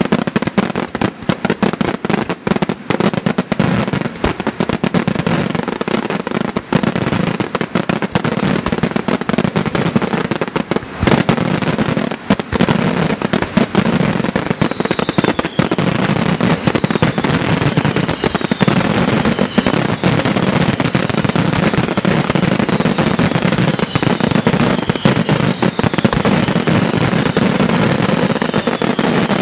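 Aerial fireworks display: a rapid, almost unbroken barrage of shell bursts, with several falling whistles heard in the second half.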